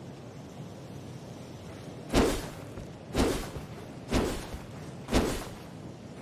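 Katana sword sound effect: four sharp swishes, evenly spaced about a second apart, each cutting in suddenly and fading within a fraction of a second.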